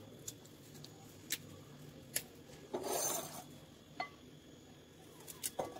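A knife cutting through a raw, firm kohlrabi bulb held in the hand: a few sharp clicks as the blade goes through, and one longer rasping cut about three seconds in.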